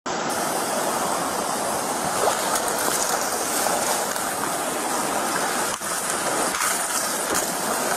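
Fast-flowing monsoon floodwater rushing through a desert wash, a steady, even rush of water picked up by a police body camera's microphone, with a couple of faint knocks in the second half.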